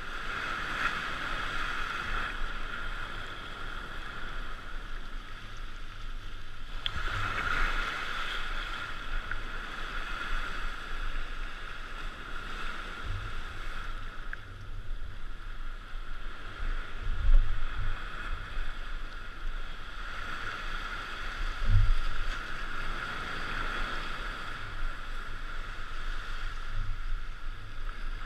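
Ocean surf breaking and washing ashore, a steady hiss that swells and fades every several seconds. A few low thumps, the loudest about two thirds of the way through.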